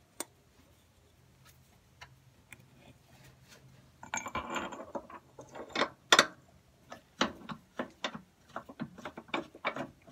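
Metal clicks and clinks of a steel body mount bolt and mount plate being handled and threaded in by hand under a pickup cab. There is a single click at the start, scraping about four seconds in, and a sharp clank just after six seconds. A run of irregular clicks follows.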